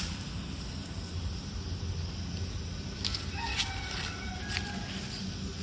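A rooster crowing once, faint: one long held call starting a little past halfway, over a steady outdoor background hum.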